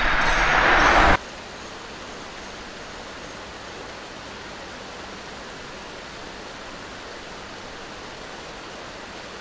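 A car passing close by, its tyre and engine noise swelling and then cut off abruptly about a second in. After that comes the steady, even rush of a shallow mountain stream running over rocks.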